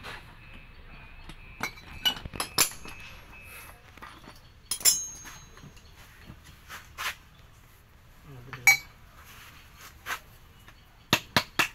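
Scattered sharp metal clinks and taps of steel tools and parts being handled on a truck differential carrier during disassembly, with a quick run of about four clinks near the end.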